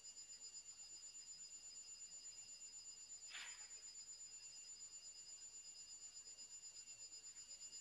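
Near silence: room tone with a faint, steady, high-pitched electronic whine made of several tones, one of them pulsing rapidly. A brief soft rustle comes about three seconds in.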